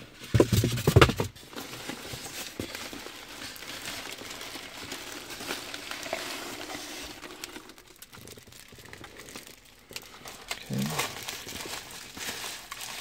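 Foil insulated shipping bag crinkling and foam packing peanuts rustling as a hand rummages through them in a styrofoam box. There are a couple of brief loud rubbing sounds in the first second.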